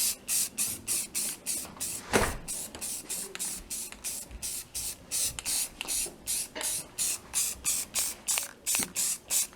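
Aerosol spray can spraying in short, even bursts, about three a second, with a knock about two seconds in.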